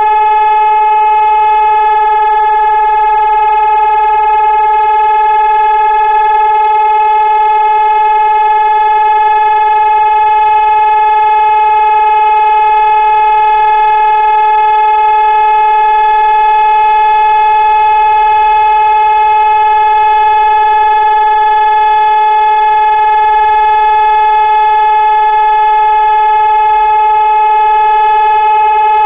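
Hörmann ECN 3000 electronic civil-defence siren, a mast of stacked horn loudspeakers, sounding a loud, steady tone that holds one pitch without rising or falling. This is the continuous memorial siren sounded in memory of fallen soldiers and victims of terrorism.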